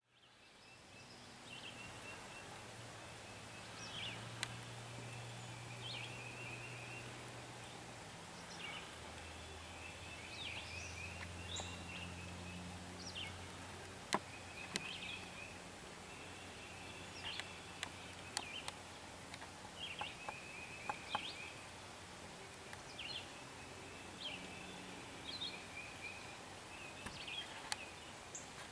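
Outdoor ambience: a songbird repeats a short song ending in a buzzy trill every two to three seconds, over a faint low drone, with a few sharp clicks.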